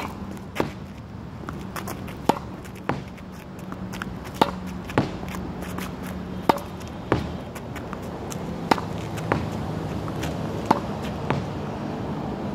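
Tennis ball being hit against a practice wall: sharp pops of the racket strike and the ball hitting the wall, coming in pairs roughly every two seconds, over a steady low hum.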